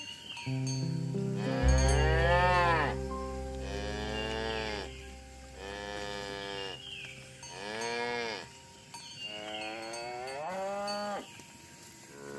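Cattle mooing: about five long moos in a row, each rising then falling in pitch, over a steady low hum through the first half.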